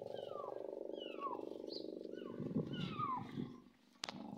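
Kittens mewing repeatedly: short, high calls that fall in pitch, about two a second, over a steady low hum. Rustling near the end, then a sharp click just after four seconds.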